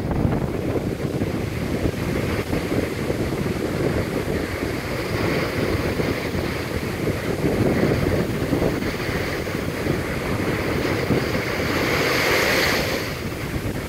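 Rough, choppy sea surging and breaking against a concrete sea wall, with strong wind buffeting the microphone. Near the end a wave bursts over the wall and its spray adds a brighter hiss.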